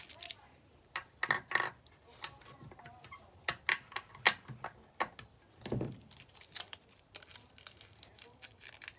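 Batteries and their plastic packaging being handled: a scatter of small clicks, knocks and crinkles.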